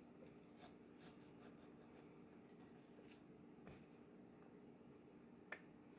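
Near silence: a steady low room hum with faint, scattered soft clicks and rubbing of hands working garlic into a raw pork roast, and one sharper click about five and a half seconds in.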